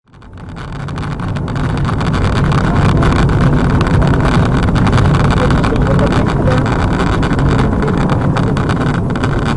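A car's engine and tyres on a snowy road, heard from inside the cabin: a steady low drone with road noise, fading in over the first two seconds.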